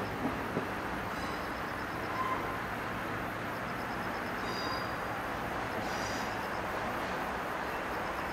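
Diesel-hauled tourist train running away into the distance: two wheel clicks over rail joints just after the start, then a steady rushing noise as it fades, with faint high chirps now and then.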